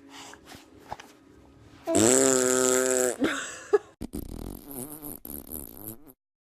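A loud, buzzy fart lasting about a second, about two seconds in, followed by quieter wavering sounds.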